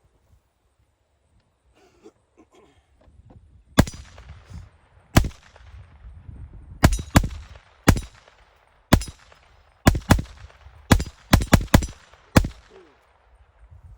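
About thirteen handgun shots fired in an uneven string over roughly nine seconds, several in quick pairs and triples, each with a short echo trailing after it.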